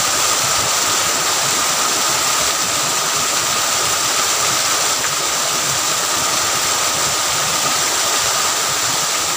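Small waterfall in a ditch pouring into a pool, a steady rushing splash of water.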